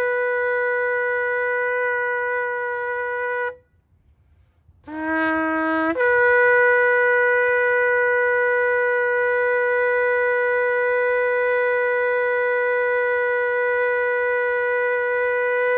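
Shofar blown in long blasts: a held note ends about three and a half seconds in, and after a short pause a new blast starts on a lower note for about a second, then jumps up to a higher note held steadily for about ten seconds.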